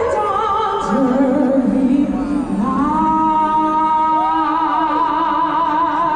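Music with singing: a voice holding long notes with vibrato over steady sustained accompaniment.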